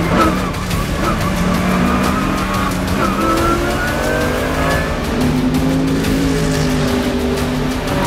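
Mercedes-AMG GT3's V8 engine racing, heard from inside the cockpit. Its pitch wavers with gear changes, then climbs steadily for about two seconds from about three seconds in as the car accelerates.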